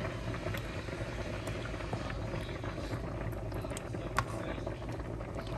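Meat spaghetti sauce simmering in a pan, bubbling with a few small pops over a steady low hum.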